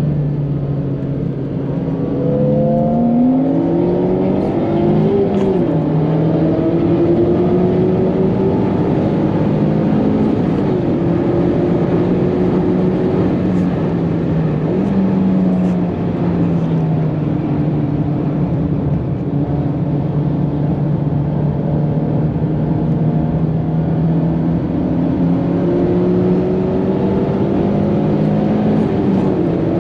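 Mazda MX-5 ND1 Miata's four-cylinder engine heard from inside the cabin, accelerating hard: its pitch climbs over the first few seconds and drops at an upshift about five seconds in, then holds mostly steady with brief dips, climbing again near the end. A steady hiss of tyres on a soaking wet track runs underneath.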